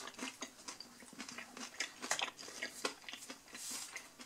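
Close-up chewing of a breaded, fried chicken strip: soft, irregular crunches and mouth clicks, several a second.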